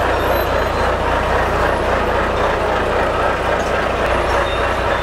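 Engine of a lorry carrying crated chickens, running steadily with a low hum as it rolls slowly past at walking pace.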